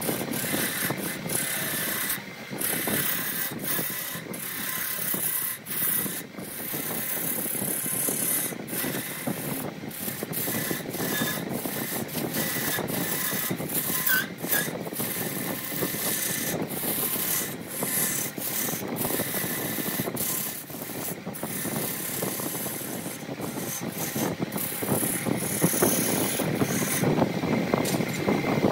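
Wood lathe turning a large redwood blank while a turning tool cuts into it: a steady rough shaving, scraping noise with many brief breaks, over a faint steady high whine.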